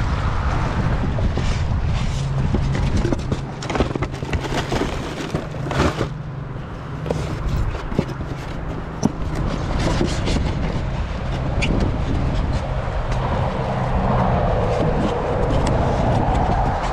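Wind rumbling on the microphone, with scattered scrapes and knocks from a polystyrene foam cooler being handled on a plastic kayak's deck, mostly in the middle stretch.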